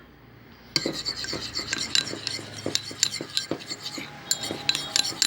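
A stirrer scraping and clicking against a container as it mixes a thick glue-and-water slime base with yellow colouring. The scraping starts about a second in and goes on as rapid, irregular clicks.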